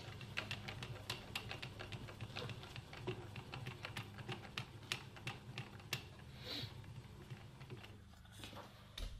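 Quick irregular clicks and taps, several a second, of a work light and small metal items being handled and repositioned on a milling machine, over a steady low hum.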